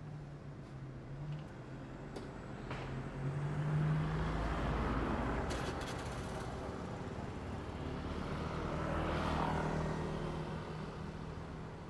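Road traffic: two vehicles pass by in turn, the first swelling loudest about four seconds in and the second about nine seconds in, with steady engine hum and tyre noise between.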